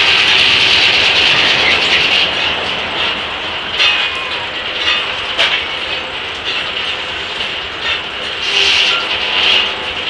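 Large circular saw blade of an 1880s Gaar Scott sawmill ringing as it cuts through an elm log for the first two seconds, then the mill's carriage and setworks rattling and clanking with a few sharp knocks. The ringing swells again near the end.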